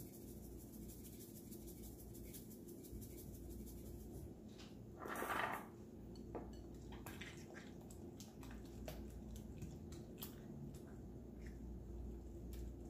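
Hand pepper grinder being twisted over a bowl, a rapid fine crackle for about the first four seconds. A brief louder swish comes about five seconds in, then scattered light clicks of a fork in a china bowl.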